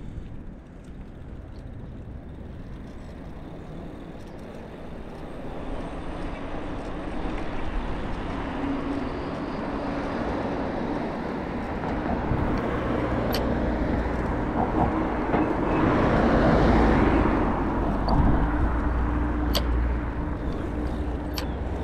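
Road traffic: a motor vehicle's engine and tyres grow louder, peak about two-thirds of the way through as it passes close, then ease off. A few sharp ticks come through near the end.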